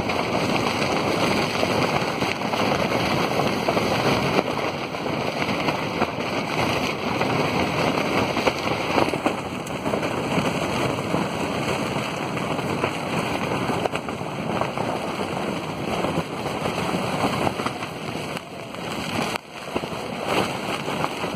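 Storm wind and rain beating on a tent, heard from inside the tent: a loud, dense, steady rush.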